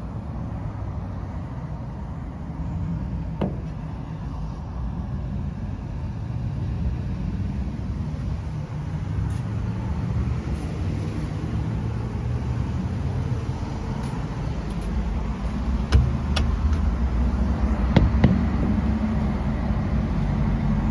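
Road traffic: a steady rumble of passing cars that grows somewhat louder in the second half, with a few brief sharp clicks.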